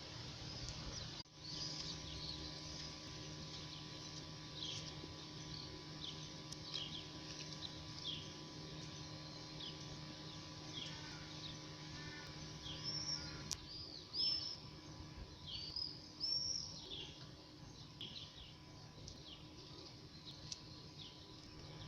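Small birds chirping over and over in short, arched high chirps, loudest and thickest a little past the middle, over a steady low background hum.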